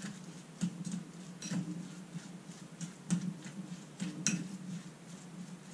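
Metal spoon stirring chicken salad in a bowl: a few light clicks as the spoon knocks against the bowl, over a steady low hum.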